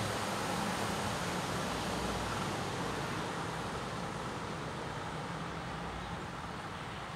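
Steady motor-vehicle noise at a closed level crossing, slowly fading.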